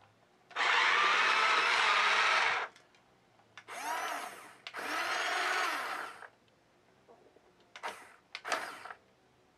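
Small electric motors and plastic gears of a motorized toy tank whirring in five separate runs as its turret swivels: three runs of one to two seconds, then two short bursts near the end. The middle runs carry a whine that rises and falls.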